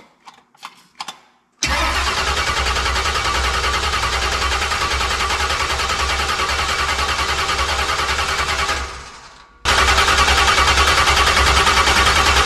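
Starter cranking a freshly built 383 stroker small-block V8 with an even, rapid beat for about seven seconds, then winding down and stopping; cranking starts again about a second later. A few light clicks come before the first crank.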